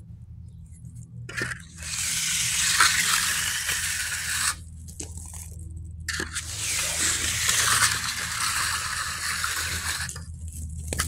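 Hand trowel sliding over the wet surface of a freshly poured concrete slab: two long scraping strokes of about three seconds each, the first starting about a second in, with a pause between, over a low steady hum.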